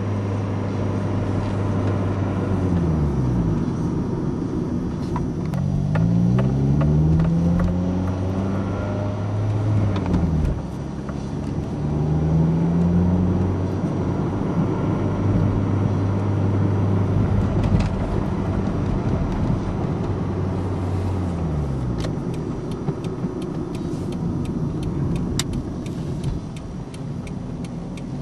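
Toyota Corolla running, its engine note rising and falling several times over a steady low hum.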